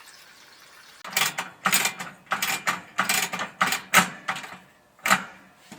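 A run of sharp mechanical clicks and rattles, ratchet-like, at roughly two to three a second, starting about a second in and stopping shortly before the end.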